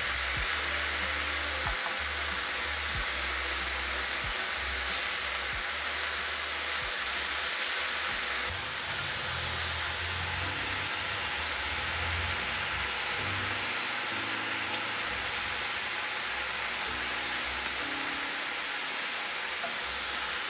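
Marinated chicken breast strips sizzling steadily in a very hot grill pan, searing over a medium-high flame, with a few light knocks of metal tongs near the start as the pieces are turned.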